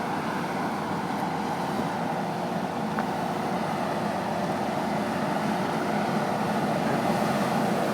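Diesel engines of a Loram RG 309 rail grinder running steadily: a constant drone with a faint steady hum, growing slightly louder toward the end.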